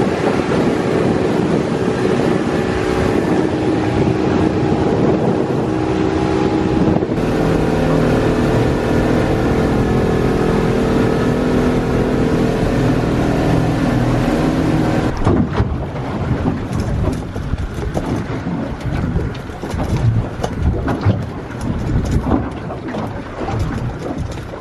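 Boat motor running steadily underway, with rushing wind and water noise. About fifteen seconds in it gives way suddenly to gusty wind buffeting the microphone.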